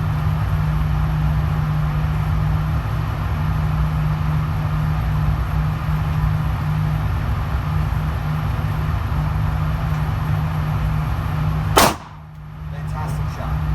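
A single pistol shot from a Smith & Wesson M&P Shield EZ near the end, sharp and loud, over a steady low hum that runs throughout.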